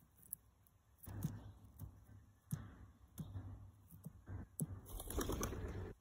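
Male Eurasian blackbird foraging on a pebble bed close to the microphone: sharp taps of its beak and feet on the stones and rustling scrapes, densest in a burst near the end.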